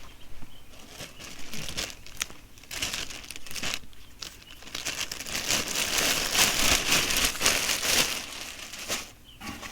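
Plastic packaging crinkling and rustling as a clothing item is unwrapped, in uneven spells that are loudest and busiest a little past the middle.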